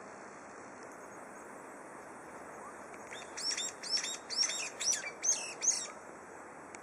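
A small songbird singing a fast series of about seven repeated high notes, starting about three seconds in and stopping near six seconds, over a steady background hiss.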